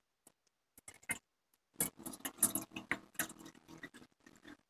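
Faint, irregular light clicks and taps, bunched together between about two and three and a half seconds in.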